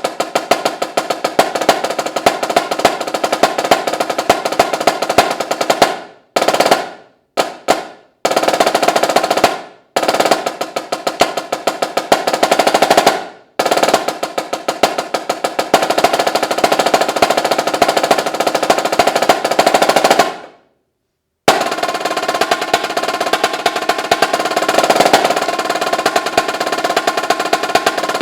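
Solo snare drum playing fast rolls and rapid accented strokes, broken by several short pauses where the drum rings out, including a full stop of about a second about two-thirds of the way through before the playing resumes.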